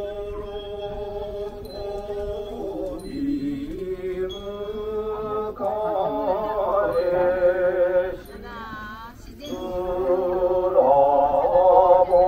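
A chanting voice holding long, wavering notes that step from pitch to pitch, fading briefly with a falling glide about eight seconds in before it comes back louder.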